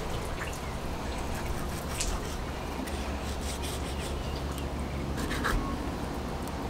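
Fillet knife skinning a snapper fillet on a cutting board: faint scraping and rubbing of the blade along the rough skin and the board, with a few light clicks, over a low steady rumble.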